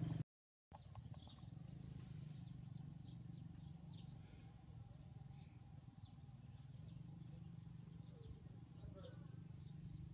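Faint outdoor ambience: scattered short, high bird chirps over a steady low hum. The sound drops out briefly just after the start.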